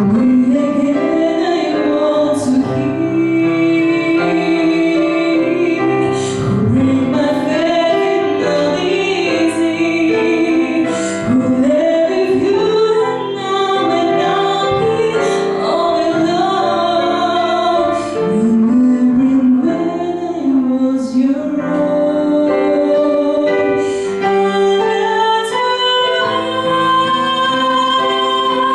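A young woman singing a slow song into a microphone, accompanied by a digital piano, her phrases gliding between notes and holding long notes.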